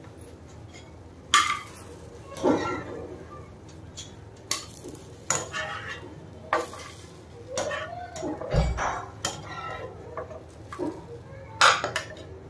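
Steel wire-mesh skimmer scraping and clinking against a metal frying pan in a series of short strokes, as fried batter pieces are scooped out of the oil. The hot oil sizzles faintly underneath.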